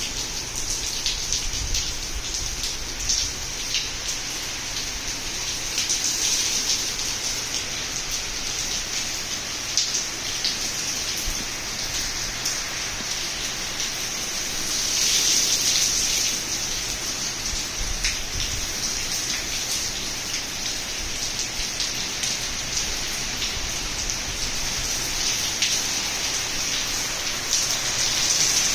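Heavy hurricane rain falling steadily, with scattered sharp drips and splashes. It swells louder briefly about halfway through.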